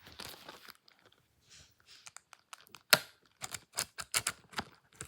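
Shrink-wrap plastic being torn and peeled off a Blu-ray case: a short crinkle, then a run of sharp crackles and snaps, the loudest about three seconds in.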